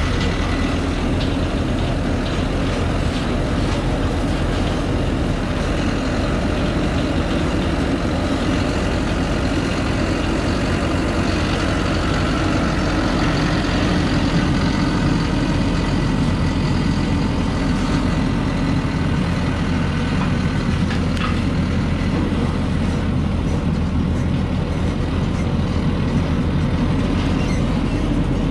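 A cargo truck's engine running steadily as the empty truck drives over a rough dirt track, with light clicks and rattles from the body and bed.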